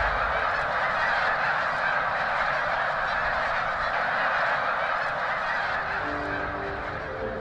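A huge flock of snow geese calling all at once, a dense steady din of overlapping honks that eases slightly near the end.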